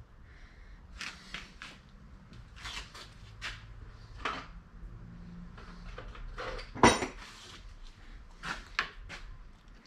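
Metal tools being handled, picked up and set down: a series of irregular light clinks and clanks, with one sharp, loud metallic clank about seven seconds in.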